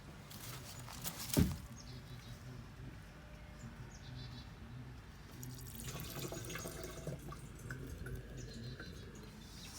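Gasoline splashing and dripping out of an old pickup's fuel tank into a container, with a single sharp thump about a second and a half in and a busier run of splashing near the end.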